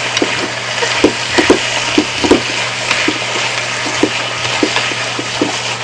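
Squid, vegetables and udon sizzling in a frying pan as they are stir-fried, with utensils clicking and scraping against the pan several times a second.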